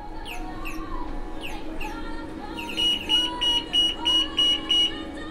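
Electronic alarm of a shop's anti-theft security gate: a rapid run of about seven short, loud, high beeps in the second half, preceded by a string of falling electronic chirps over a steady hum.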